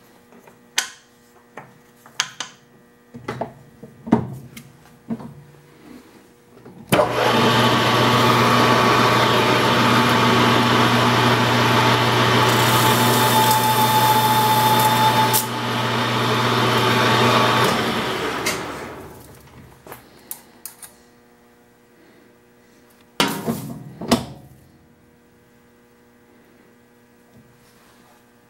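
Grizzly G4002 metal lathe starting about seven seconds in and running steadily with a low hum for about ten seconds while the tool cuts an object cell, with a brighter hiss of cutting partway through, then spinning down. Before the run there are small clicks and knocks of handling the chuck and workpiece, and after it a couple of sharper knocks.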